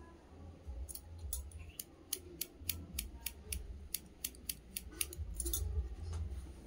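Hairdressing scissors snipping through a held lock of long hair: a quick run of crisp snips, about four a second, starting about a second in and stopping shortly before the end.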